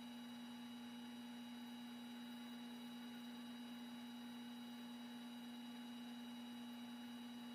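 Metal lathe running at steady speed while facing a Remington 700 rifle receiver: a faint, even hum with a thin high whine above it.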